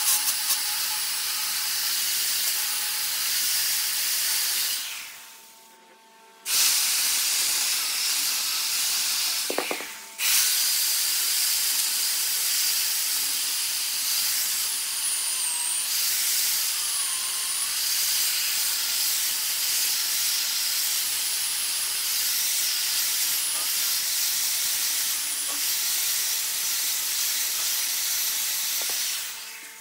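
Wood lathe turning, a cutting tool shaving the spinning wood with a steady hiss. The hiss drops away briefly about five seconds in and again just before ten seconds, and fades near the end.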